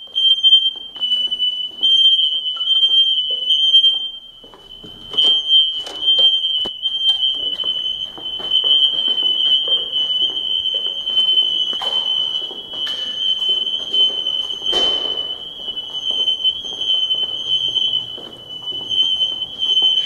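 Several interconnected Kidde/Firex smoke alarms sounding together in full alarm, their high-pitched tones overlapping into one near-continuous shrill tone: a false alarm, with no fire. A few knocks sound under it.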